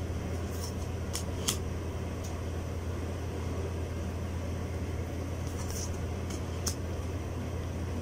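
Tarot cards being flipped and slid over one another in the hands, giving a few short, soft card swishes and clicks, over a steady low hum.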